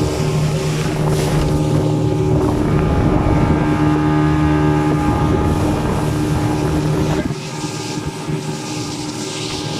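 Motorboat engine running steadily, with wind on the microphone; the engine eases off and gets quieter about seven seconds in.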